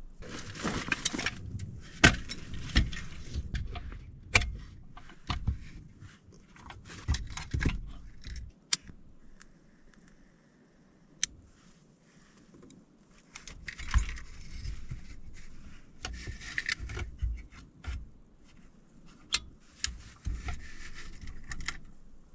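Irregular clattering and sharp knocks of hard objects being handled, with a metallic jangling quality, pausing for a few seconds about ten seconds in before starting again.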